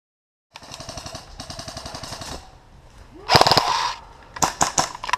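Airsoft guns firing. After a moment of dead silence, a rapid full-auto stream of shots runs for about two seconds, a louder burst follows, and a quick string of four or five sharp shots comes near the end.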